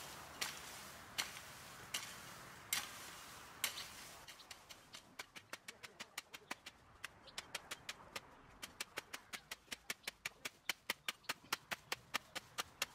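A shovel striking and scraping a heap of crushed rock in sharp strokes about a second apart. From about four seconds in, a faster, even run of crisp clicks takes over and speeds up to about four or five a second.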